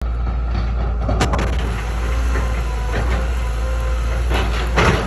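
Cat 316F excavator's diesel engine running steadily under hydraulic load, with sharp cracks about a second in and louder cracking just before the end as the bucket pushes against a pine tree.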